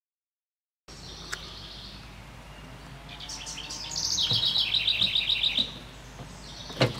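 Silence for the first second, then a songbird sings outdoors: a quick trill of high, rapid chirps from about three to five and a half seconds in. A single sharp thump comes near the end.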